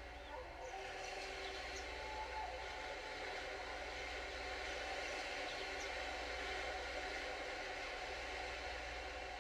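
Ambient soundscape generated live from a heartbeat by a Sound of Soul biofeedback music device, played over a speaker: a steady wash of ocean waves with sustained tones under it and a few faint bird chirps.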